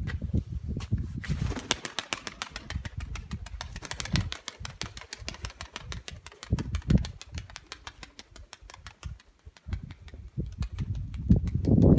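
Domestic pigeons cooing in low bursts, with a fast, even ticking running alongside from about a second in.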